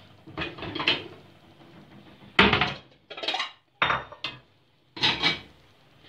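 Kitchen dishes and cutlery clattering in about five separate bursts of knocks and rattles, the loudest starting sharply about two and a half seconds in.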